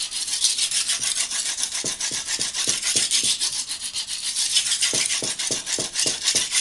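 Farberware steel kitchen knife blade scraped back and forth on an oiled common brick: a rapid, even rasping, stroke after stroke, as one side of the dull edge is ground flat toward a new edge.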